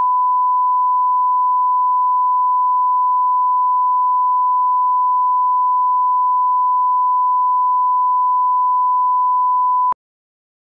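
Steady 1 kHz test tone, the reference tone that runs under SMPTE colour bars, held at one pitch and cutting off suddenly near the end.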